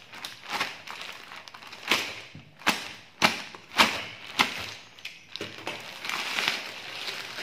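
A plastic courier mailer being slit with a box cutter and torn open by hand: a run of sharp rips about every half second, then steadier crinkling and rustling of the plastic near the end.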